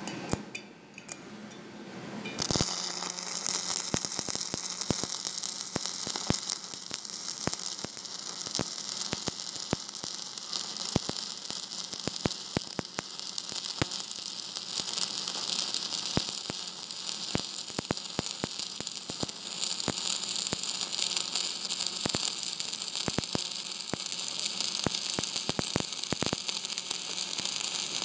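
Stick (SMAW) arc welding with a 7018 electrode on a vertical-up weld. The arc strikes about two and a half seconds in, then crackles and hisses steadily with frequent sharp pops.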